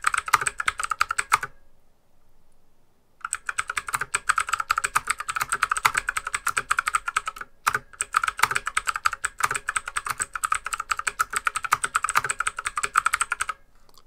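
Fast typing on an AUKEY budget mechanical keyboard whose keys are not yet fitted with O-ring dampeners: a dense, noisy clatter of key clicks. A short burst, a pause of about two seconds, then near-continuous typing with a brief break in the middle, stopping just before the end.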